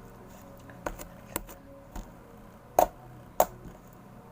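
Homemade glue slime being pressed and worked by hand, giving sharp clicking pops about five times, the loudest two in the second half.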